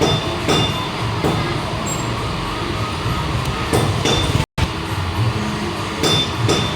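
Electric arc welding crackling steadily on metal, with scattered sharp metallic clinks that ring briefly. The sound drops out for a moment about four and a half seconds in.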